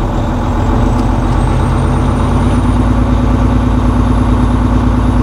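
Volvo VNL semi truck's diesel engine being raised from idle to a fast idle of about 1,100 rpm, the start of a computer-commanded parked regeneration of the exhaust aftertreatment (DEF crystal sublimation). The engine note grows slightly louder, and a thin high whine climbs in pitch over the first few seconds, then both run steadily.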